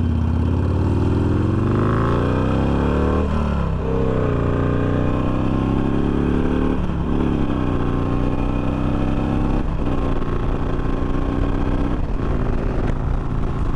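Harley-Davidson Sportster's air-cooled V-twin accelerating hard through the gears: the engine note rises, dips at each of three upshifts, then settles into a steady cruise near the end.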